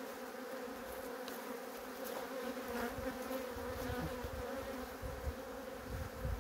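Honey bees buzzing over an opened hive and a lifted brood frame, a steady hum, with low bumps mixed in from about two seconds in.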